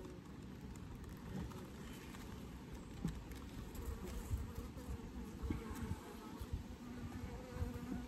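Honeybees buzzing as they fly around an opened hive, a faint steady hum. Irregular low buffeting from wind on the microphone, with a few brief louder gusts about three to five and a half seconds in.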